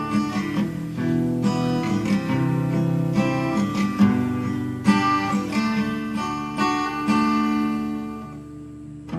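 Acoustic guitar strumming chords in the instrumental intro of a karaoke backing track, growing quieter near the end.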